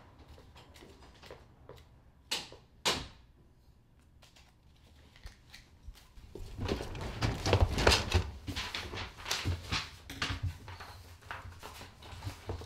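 Paper and small objects handled on a desk: two quick swishes about two and a half seconds in, then several seconds of busy rustling, clicking and light knocks.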